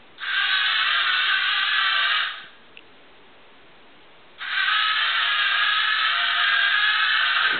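Small electric motors of a homemade robot vacuum cleaner running with a high whine in two bursts, about two and three seconds long, with a pause between, as the robot drives and turns.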